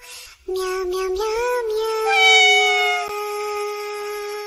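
A synthetic voice singing a melody in cat meows. After a brief break it comes back about half a second in with a few short rising notes, then holds one long, steady note.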